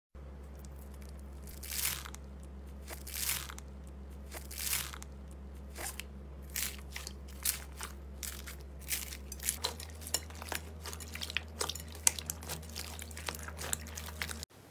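Slime being squeezed and worked by hand, making crunchy crackles and pops. A few slow, soft squishes come first, then quicker, sharper crackles from about six seconds in, over a steady low hum.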